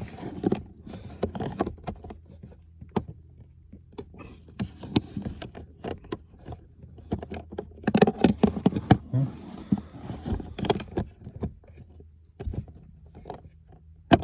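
Cabin air filter's frame scraping and knocking against the plastic filter housing as it is pushed and wiggled, failing to catch its groove: irregular clicks and scrapes, busiest about eight to eleven seconds in.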